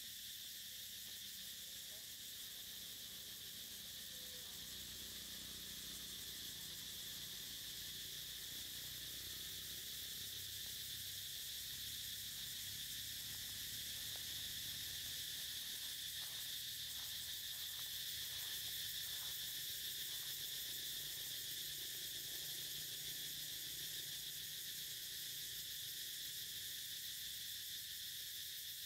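Insect chorus: a steady high-pitched drone of crickets or similar insects that holds unchanged throughout.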